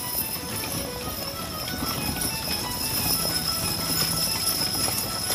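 Hooves of a hitch of draft horses clip-clopping on a dirt track as the team walks a wagon closer.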